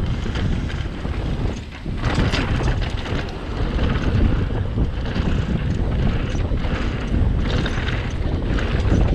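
Wind buffeting the action camera's microphone during a fast mountain-bike descent, with the bike rattling over rough trail in short clicks and knocks. There is a brief lull about a second and a half in.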